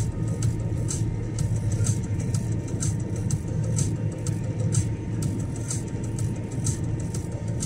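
A car being driven, its engine and road noise running steadily. A faint steady whine sits above it, and many short light ticks come at irregular intervals.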